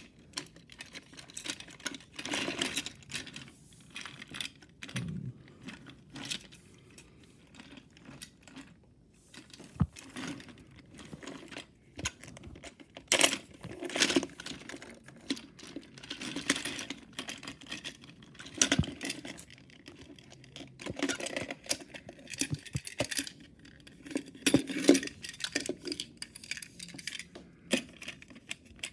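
Plastic Plarail toy train cars handled on plastic track: irregular clicks, rattles and scrapes as the tender and coach are worked apart and together at their hook couplers.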